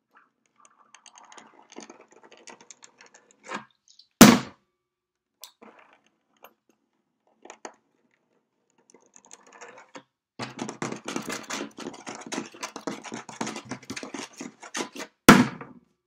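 Hands on a wooden tabletop: faint scratching and sliding of fingers over the wood, a loud slap on the table about four seconds in, then a dense run of rapid finger taps from about ten seconds, ending in another loud slap near the end.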